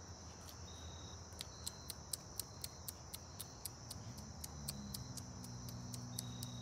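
Faint insect chorus: a steady high trill with quick ticks, about four a second. A low steady hum comes in about four seconds in.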